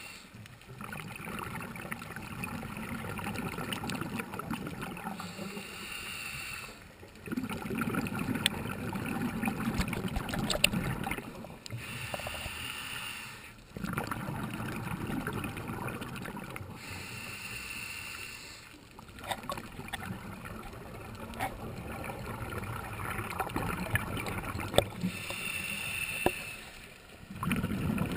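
Scuba diver breathing underwater through a regulator: a hiss on each inhale alternating with a low bubbling rumble on each exhale, a breath about every six seconds. Scattered sharp clicks run through it.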